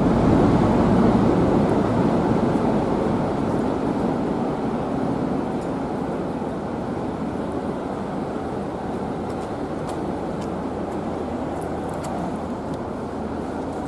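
A passing train rumbling, loudest at the start and fading gradually over the first several seconds before settling to a steady lower rumble.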